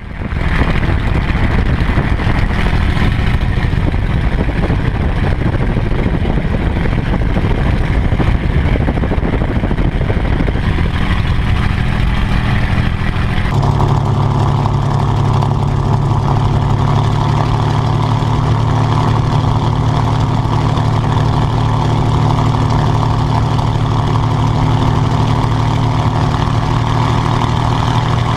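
P-51D Mustang's Packard Merlin V-12 engine running steadily at power. About halfway through the sound changes abruptly to a deeper, steadier drone with a stronger low hum.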